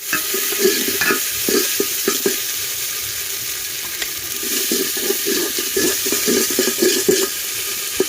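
Onion and spice masala sizzling in hot oil in an aluminium handi, being stirred in repeated strokes while it is lightly fried (kosha).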